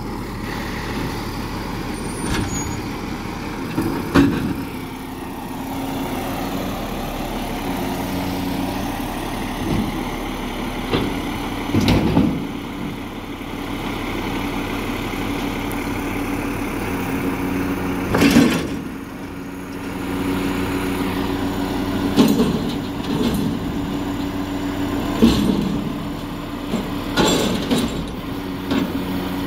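Front-loader garbage truck's engine running steadily while its hydraulic forks lift a steel skip bin over the cab and hold it upturned above the hopper. Several loud bangs and clatters break through the engine, spread over the lift.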